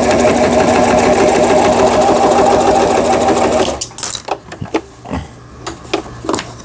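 Toyota RS2000 household sewing machine running steadily through a straight stitch in fabric, its once-seized mechanism now turning freely after repair; it stops abruptly a little over halfway through, and a few light clicks and taps follow.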